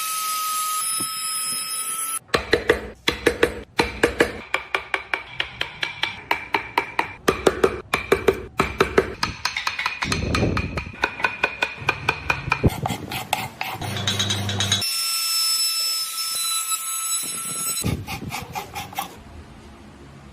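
Wood-carving tools at work on wood. A small high-speed rotary carving tool whines steadily at the start and again later. In between, a hand tool works the wood in rapid repeated strokes, about three a second, for roughly twelve seconds.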